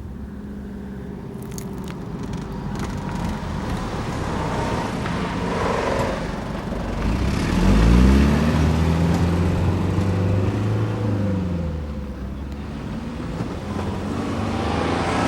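Road traffic at a level crossing: a motor vehicle's engine approaches and passes close by, swelling to its loudest about halfway through and then fading, with another vehicle drawing near at the end.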